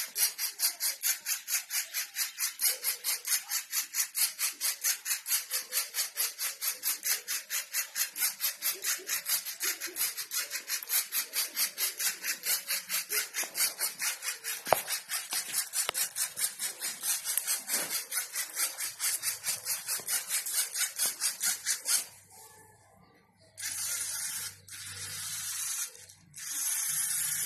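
Small LEGO Mindstorms robot's electric motors whirring in quick even pulses, about three or four a second, as it steers along the line. Near the end the pulsing stops and three separate whirs about a second long follow.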